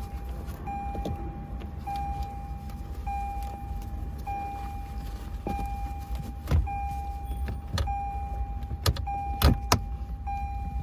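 A Lexus RX's cabin warning chime beeping steadily, one tone about every 1.2 seconds. Several sharp plastic clicks and knocks come in the second half as the dash screen is set back into place.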